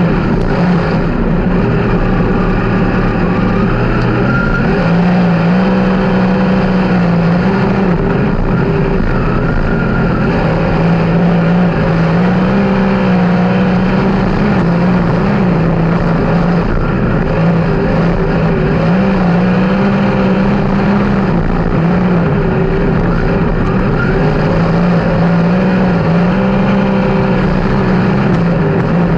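A 360 sprint car's V8 engine running hard on a dirt oval. Its pitch climbs and drops in a repeating cycle every few seconds as the car goes down the straights and backs off into the turns.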